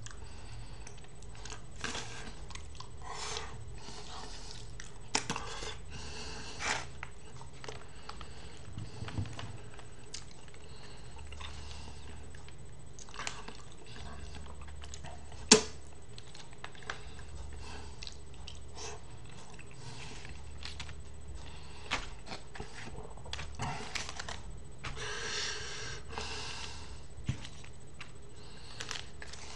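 A person eating smoked mackerel: chewing and picking at the fish on a plate. Scattered small clicks and rustles, with one sharp click about halfway through and a busier patch near the end.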